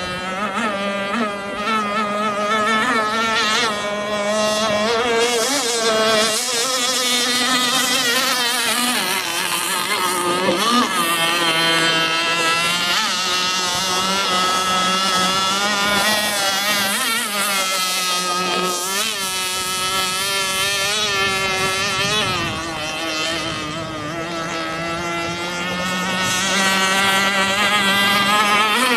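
Twin Zenoah G260 two-stroke engines of a radio-controlled F1 racing boat running flat out, their high-pitched whine wavering up and down as the boat speeds past and turns. The sound drops a little about three-quarters through, then grows louder again near the end.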